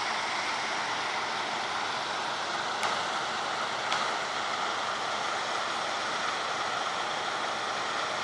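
Claas combine harvester running in the field, heard as a steady, even rushing noise without a distinct engine note. Two brief clicks about three and four seconds in.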